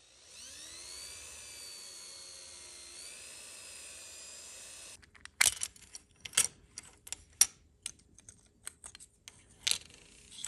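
Power drill with a 1/8-inch bit spinning up and running with a steady whine for about five seconds, drilling out the rivet of a Hot Wheels diecast car. It then stops abruptly, followed by a run of sharp clicks and taps as the small metal body and plastic parts are pulled apart and handled.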